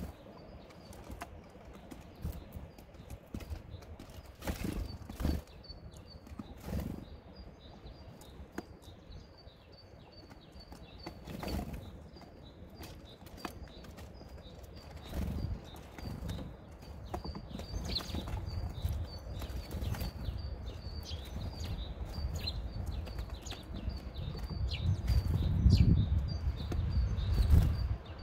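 Great tits pecking and hopping on a wooden feeder tray of loose seed: many quick taps and clicks of beaks and feet on wood and husks, with brief wing flutters as birds land and leave. A low rumble swells near the end and is the loudest part.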